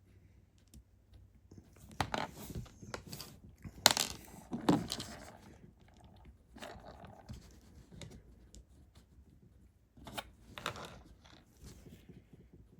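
Plastic LEGO pieces rattling, clicking and being pressed together by hand, in a few short bursts with a sharp click about four seconds in.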